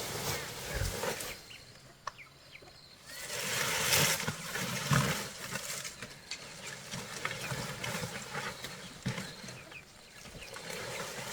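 An open fire burning with scattered small crackles; it dies down about two seconds in and flares up loudly again about a second later.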